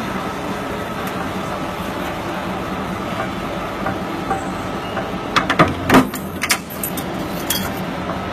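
J23-40 ton mechanical power press running with a steady hum from its motor and flywheel. About five and a half seconds in comes a cluster of sharp metallic clanks as the press strokes and the die cuts the metal strip for a duct corner, with a lighter knock shortly after.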